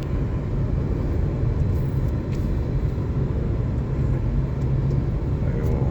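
Steady low rumble of a car on the move: engine and tyre noise.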